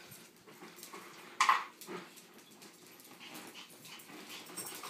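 A dog gives one short, sharp cry about a second and a half in, then a fainter one half a second later.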